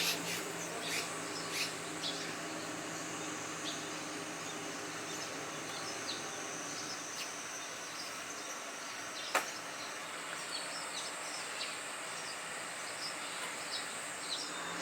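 Steady rushing outdoor background with a constant high insect drone, and scattered short chirps of red-rumped swallows throughout. One sharp click about nine seconds in.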